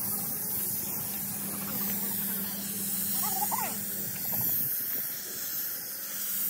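Compressed-air paint spray gun with a gravity-feed cup spraying paint: a steady, airy hiss.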